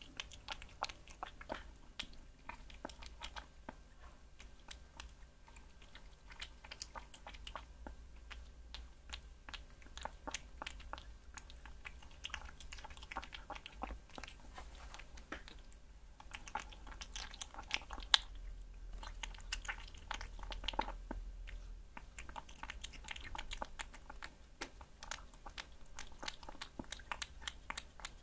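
Kitten chewing and licking chunks of raw meat, close to the microphone: a steady stream of small clicks and smacks, with a short pause about halfway through.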